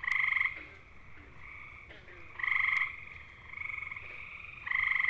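Gray tree frogs (Hyla versicolor) giving their musical mating trill: three loud, half-second trills about two and a half seconds apart, with a fainter trill in between.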